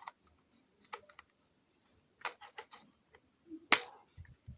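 Plastic robot-kit parts clicking and knocking as a piece is pushed into the chassis, a tight fit: scattered sharp clicks, a quick cluster about two seconds in, the loudest click near the end, then a low thud.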